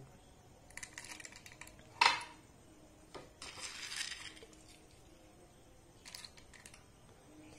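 Roasted peanuts handled by hand, scooped from a ceramic plate and dropped into a glass, making light clicks and rattles. One sharper knock comes about two seconds in, and a short rustle follows around four seconds.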